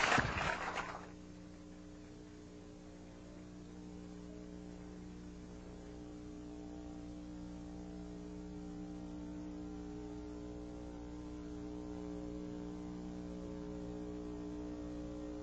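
A loud noisy burst cuts off about a second in, leaving a steady electrical mains hum with a faint buzz.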